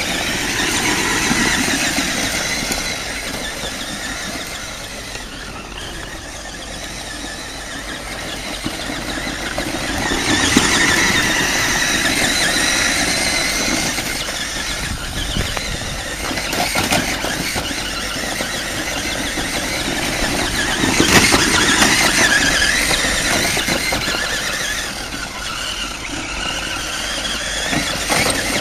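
Radio-controlled toy Hummer H2's small electric motor and gears whining, rising and falling as the truck speeds up and slows, loudest about ten and twenty seconds in.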